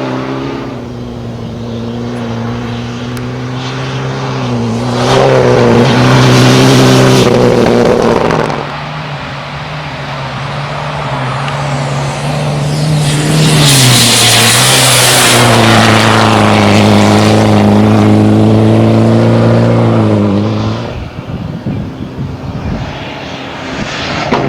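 Rally prototype car's engine running hard, its note holding steady and then dipping and rising again with lifts off the throttle and gear changes. There is a loud hiss around the middle, and the engine note drops away near the end.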